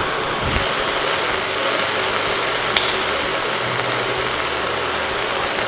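Onion and leek sautéing in oil in a stainless steel pot, a steady sizzle. One light click about three seconds in, as a knife cracks a piece off a potato.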